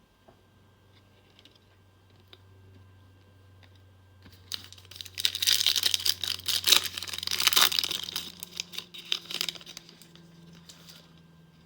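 A foil trading-card pack wrapper being torn open and crinkled, a dense crackling that starts about four seconds in, lasts about five seconds and then dies away.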